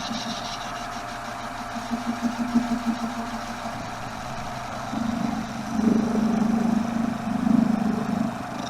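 Metal lathe running while a brazed carbide tool takes a light turning pass on a 12L14 steel bar. The cutting noise swells about halfway through.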